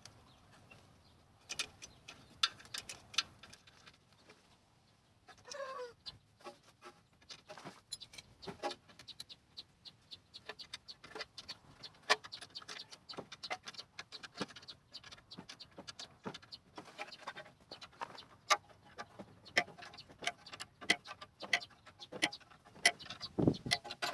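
Irregular metallic clicking and ticking of a ring spanner working the rear brake caliper bolts tight, sparse at first and coming quickly from about eight seconds in. A short falling chirp sounds once, about five seconds in.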